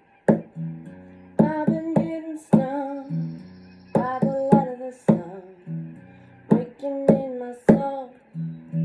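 Acoustic guitar played with sharp percussive strums, under a voice singing a wordless, wavering melody.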